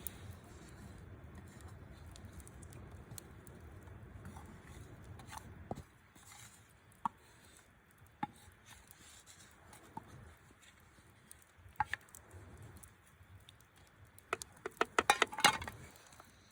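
Low rumbling noise for about the first six seconds, then scattered sharp clicks and taps, ending in a rapid flurry of loud clicks lasting about a second near the end.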